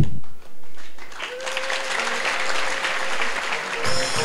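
A congregation applauding, starting about a second in, with one sustained instrument note held underneath.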